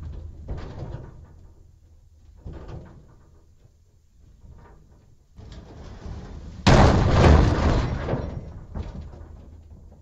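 Hollow metal strikes on a steel dumpster: a few light knocks, then one heavy blow about two-thirds in that booms and dies away over a few seconds, followed by more light knocks.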